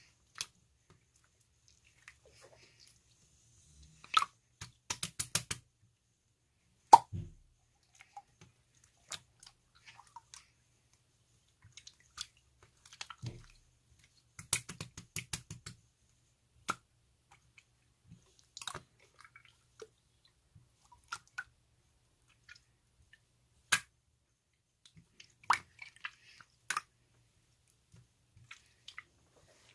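Close-up chewing: scattered crisp crunches and sharp clicks, with two runs of quick repeated bites, one about four seconds in and another about halfway through.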